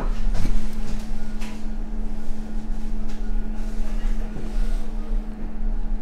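A steady low mechanical hum with one constant tone, under a few faint light taps as food is arranged on a ceramic plate.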